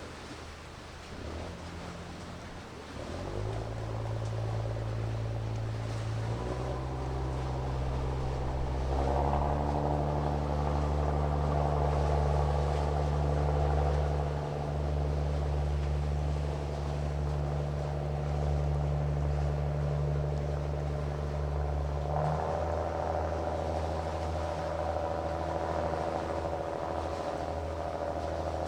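An engine running steadily, its drone shifting in pitch in a few sudden steps.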